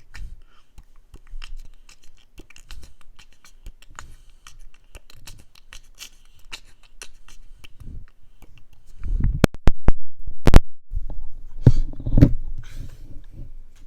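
ASMR trigger sounds close to the microphone: soft rapid ticks and scratches, then, about nine seconds in, louder handling with a low rumble and several sharp clicks, two of them in quick pairs.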